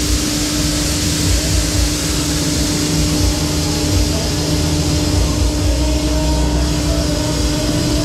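Twister Maxi Jump fairground ride in motion, heard from a rider's seat: a steady rushing noise with a low rumble and a steady hum. Fairground music plays faintly underneath.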